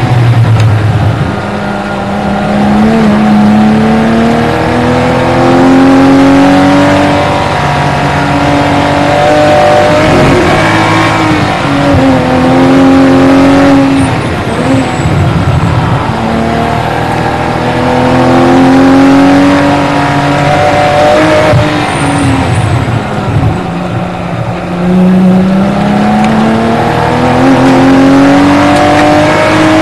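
Porsche Boxster 981 RSR race car's flat-six engine at high revs on track. The pitch climbs repeatedly under acceleration and falls back at each gear change and when braking for corners.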